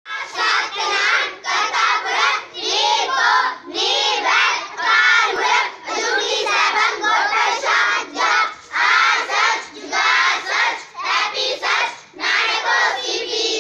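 A group of children chanting a Sikh prayer together in unison, in short phrases with brief breaks between them.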